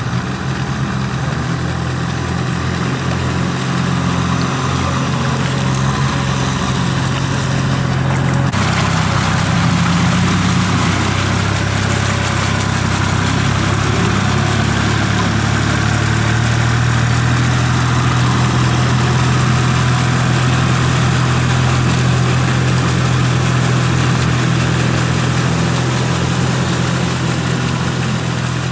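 Small diesel tractor engines running steadily under load as cage-wheeled tractors puddle a flooded rice paddy. The engine note changes abruptly about eight seconds in, where a different tractor is heard.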